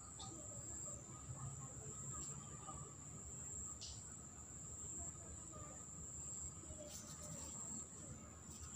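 Insects shrilling steadily on one unbroken high-pitched note, with a few faint clicks about four and seven seconds in.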